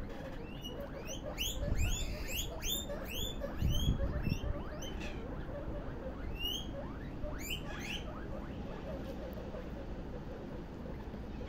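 Guinea pigs squeaking: a quick run of short, high-pitched chirping squeaks through the first five seconds, then a few scattered ones later.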